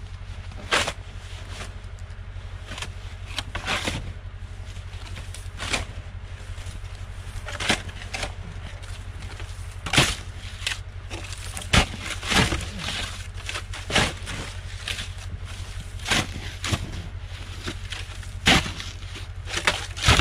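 Shovel blade chopping and scraping into hard snowpack and ice around a stuck truck's tire, in irregular sharp strikes every second or two, over a steady low rumble.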